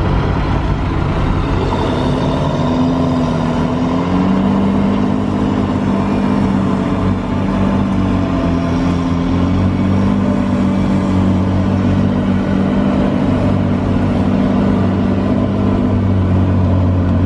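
Heavy diesel engine of a logging machine running steadily under load, heard from inside its cab, its drone wavering slightly in pitch.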